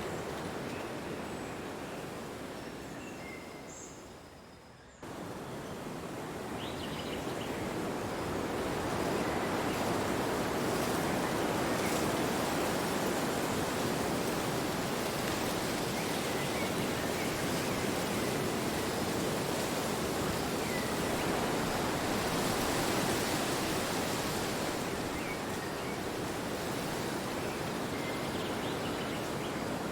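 Wind blowing in a steady rushing noise that swells and eases slowly. It dips to a low point about five seconds in, then cuts sharply back up, like a join between two recordings.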